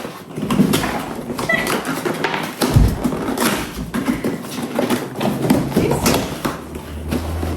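Cardboard and packaging from a new laptop being handled and pulled open: irregular rustling with scattered taps and clicks.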